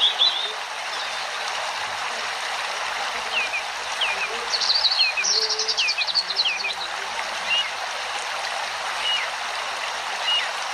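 Small birds chirping over a steady rush like a flowing stream, with short falling chirps and a rapid trill about halfway through.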